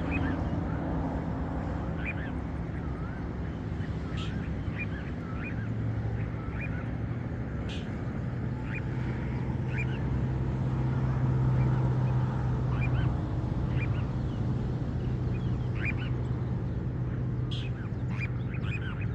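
Short high bird calls, some rising in pitch, scattered throughout over a steady low hum.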